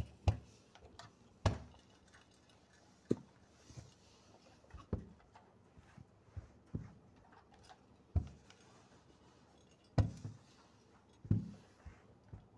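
Clothes iron and hands working on cloth on a padded pressing table: about a dozen soft knocks and taps at irregular intervals, with quiet between them.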